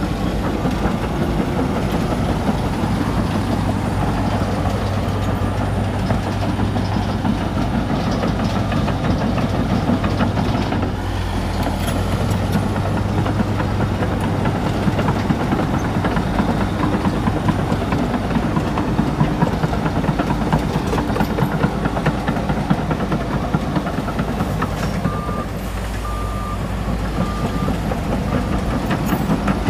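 Komatsu D61EX bulldozer working: its diesel engine running hard under load, with constant rattling and clatter. Near the end a reversing alarm beeps, about three beeps every two seconds.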